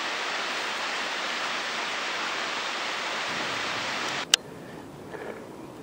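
Steady rushing of a mountain torrent, the Civagno stream in its gorge. About four seconds in it cuts off with a click, leaving only a faint hiss.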